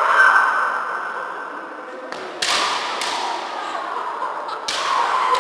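Kendo fighters' kiai shouts and the sharp crack of bamboo shinai strikes with stamping feet on a wooden floor. A drawn-out shout at the start, then two sudden hits, about two and a half seconds in and again near the end, each ringing on in the hall.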